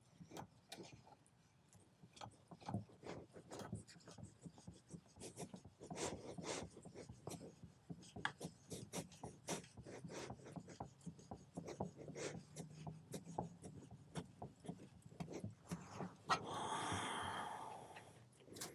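Cast-iron sole of a Luban No 4 smoothing plane rubbed back and forth on abrasive paper laid on glass, a fairly faint run of quick rasping strokes, several a second, with a longer rub near the end. These are a few light passes to show up any high spots on the sole.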